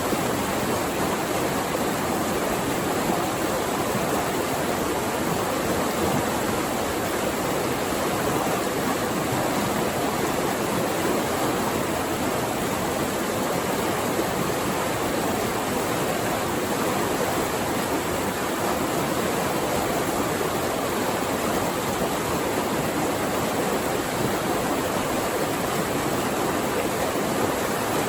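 Flowing water, a steady even rush with no breaks.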